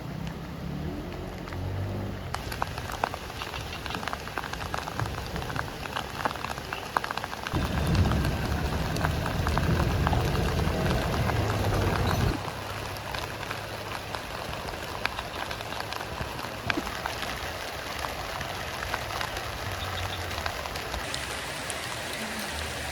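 Steady rain falling, with many separate drop hits pattering through it. About a third of the way in, a louder low rumble comes up for about four seconds, then stops suddenly.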